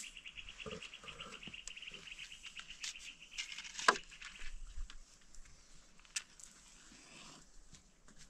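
An insect trilling, a fast even high-pitched pulsing that stops about three and a half seconds in. A single sharp click comes just after, followed by a few fainter ticks.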